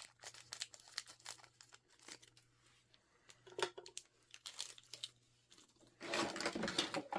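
Toy packaging handled while its parts are unpacked: irregular crinkling and crackling with scattered sharp clicks, growing to a denser burst of crinkling about six seconds in.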